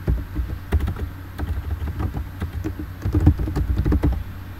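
Typing on a computer keyboard: a run of irregular key clicks, many with a dull low thud.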